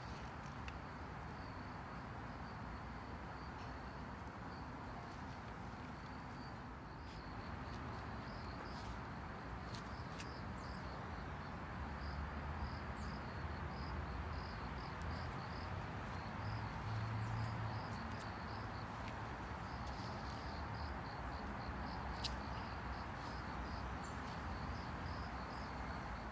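Outdoor ambience with an insect chirping in a steady, pulsing high-pitched trill over a low background rumble, with a few faint clicks.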